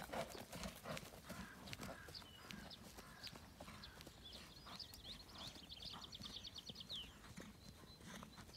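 A ridden horse's hoofbeats on grass turf, strongest at first and fading as it moves away. From about four and a half to seven seconds in, a songbird sings a rapid trill that ends in a falling note.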